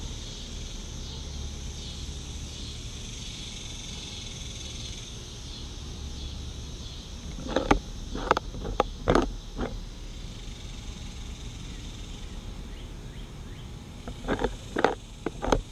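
Wild cottontail rabbit biting and crunching a carrot right at the microphone: a quick run of sharp crunches about eight seconds in and another near the end, over a steady background of insects.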